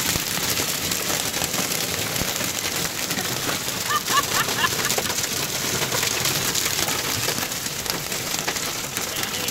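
Heavy rain pelting the roof and windows of a car, heard from inside the cabin: a dense, steady drumming of drops.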